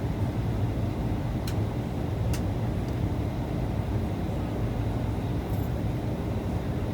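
Steady low rumble of an airliner's engines and airflow heard inside the passenger cabin, with two faint clicks about a second and a half and two and a half seconds in.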